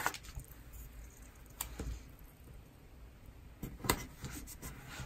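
Light paper handling: small sticker and paper rustles and a few sparse clicks and taps of fingers pressing stickers onto a planner page, with a pair of taps about a second and a half in and a few more around four seconds in.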